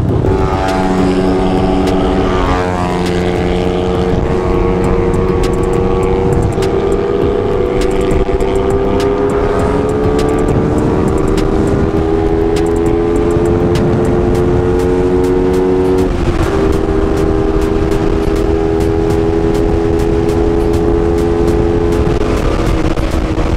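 Suzuki Raider 150 Fi's single-cylinder engine running under way over a steady rushing noise. Its pitch climbs slowly as the motorcycle gains speed, drops suddenly about sixteen seconds in, then holds steady.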